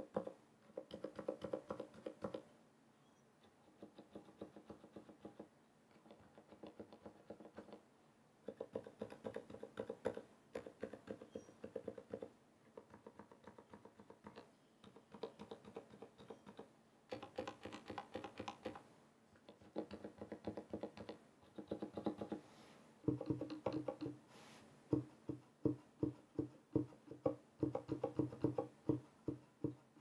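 Typing on a Ducky x Varmilo Miya Pro mechanical keyboard with Cherry MX Silent Red switches and PBT keycaps, pressed by fingers with long acrylic nails. The keystrokes come in quick runs of one to two seconds with short pauses between them. In the last third the strokes are louder and more spaced out.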